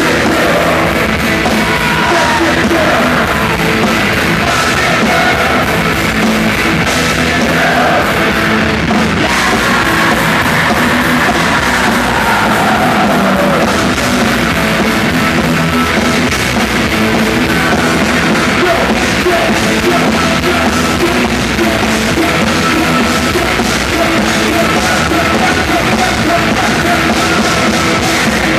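Loud live rock music: a full band with drums playing continuously, with singing over it.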